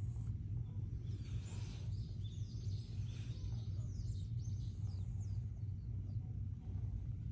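Small birds chirping in a quick twittering series from about one to five seconds in, over a steady low hum.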